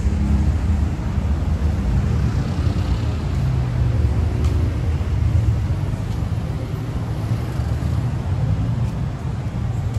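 Street traffic, with a motor vehicle's engine running close by as a steady low rumble.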